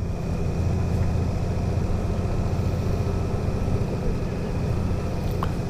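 2018 Honda Gold Wing's flat-six engine running steadily at low speed, about 10 miles an hour, as the bike rolls along a dirt road.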